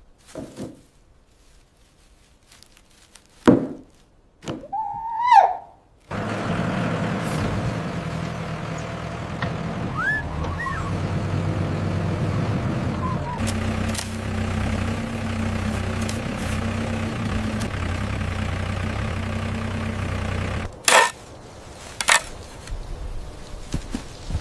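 A vehicle engine running at a steady idle-like hum for about fifteen seconds, starting abruptly after a few knocks and a short rising squeal, then cutting off suddenly, followed by a few sharp clicks.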